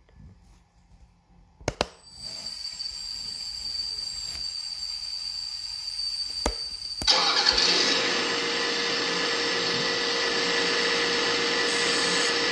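Electric hydraulic pump motor of a Liebherr 954 RC model excavator being tested: a couple of clicks, then a steady high whine. About halfway through there is another click and the pump runs up to a louder steady whir.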